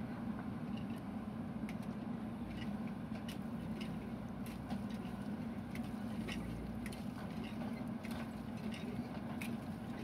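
JCB 3DX backhoe loader's diesel engine running steadily while the backhoe digs a trench, with scattered light clicks and clinks of the digging over the hum.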